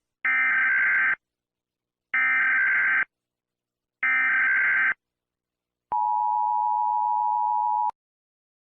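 Emergency Alert System header: three short bursts of SAME data tones, each about a second long and about a second apart, then the EAS two-tone attention signal held steady for about two seconds and cut off sharply.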